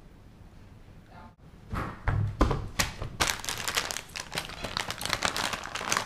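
A few thumps on a table about two seconds in, then a plastic snack bag crinkling and rustling as it is handled.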